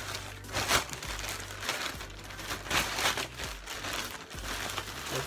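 Plastic courier bag crinkling and rustling as hands pull and crumple it open, in irregular surges, loudest about a second in and near three seconds.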